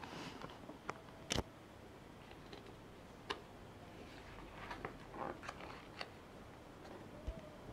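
Handling a paper brochure: a few sharp clicks and taps as fingers touch the pages, then rustling as a page is turned over about halfway through, and a low thump near the end.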